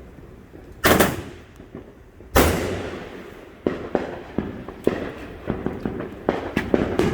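Consumer fireworks going off: two loud bangs about a second and a half apart, then a quick run of sharp pops and crackles.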